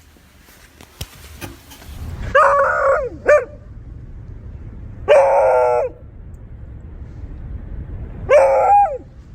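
Beagle baying: three drawn-out barks about three seconds apart, the first followed by a short extra bark.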